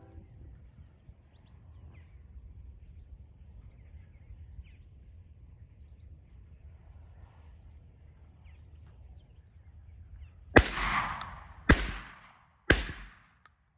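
Low wind rumble with faint bird chirps, then three shotgun shots about a second apart near the end.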